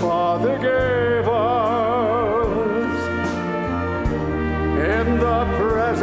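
Live music: a solo melody line of long held notes with wide vibrato over a steady accompaniment, pausing briefly past the middle before coming back in.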